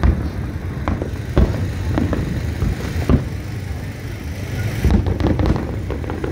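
Aerial fireworks shells bursting: a string of loud, irregularly spaced bangs, roughly one a second, over a steady low rumble.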